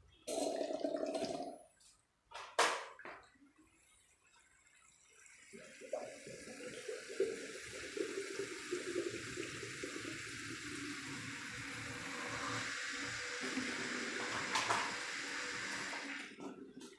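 Distilled water rushing and gurgling through a custom PC water-cooling loop as the pump circulates it for a flush. It builds from about five seconds in and then holds steady, after a brief hum and a couple of clicks near the start.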